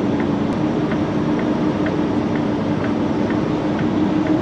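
Peterbilt truck's diesel engine running steadily at low speed, heard from inside the cab, with a light regular tick about twice a second.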